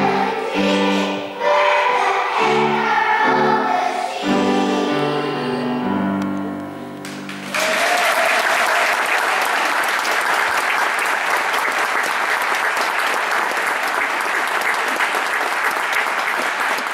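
Children's choir singing the last phrase of a song, which ends about seven seconds in; the audience then breaks into steady applause.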